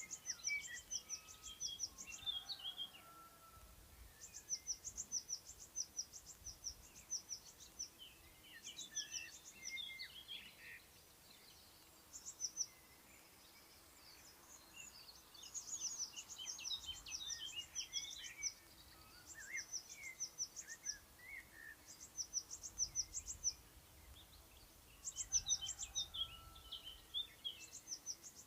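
Several songbirds singing. One repeats short phrases of rapid, high, sharp notes every few seconds, while others chirp and warble lower in between.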